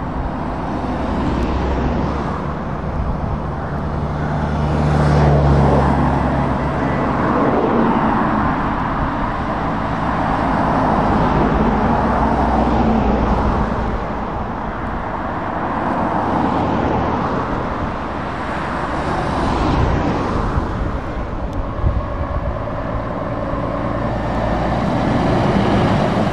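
Road traffic passing at close range, cars and vans going by with tyre noise and engine sound that swell and fade with each pass. A Scania 480S tractor unit's engine drone is among them, coming up loudest near the end as it passes close.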